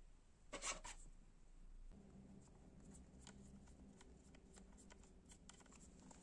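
Near silence with faint handling noise: a brief rustle about half a second in, then scattered faint clicks over a faint low hum that starts about two seconds in.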